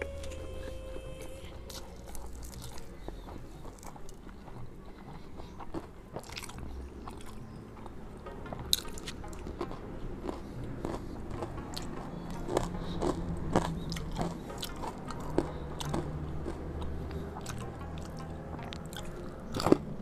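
A person chewing and crunching mouthfuls of rice and fried snacks, eaten by hand, with scattered sharp mouth clicks and smacks over a low steady hum.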